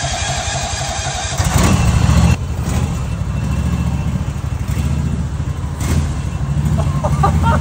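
Riding lawn mower's gasoline engine running with an even pulse, getting louder for about a second starting about a second and a half in.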